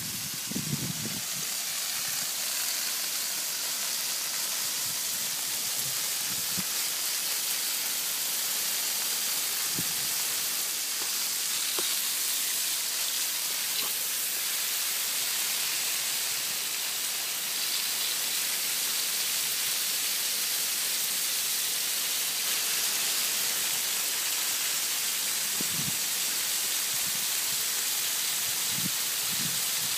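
Steady hiss of water spray from a garden hose nozzle, falling on leaves and soil.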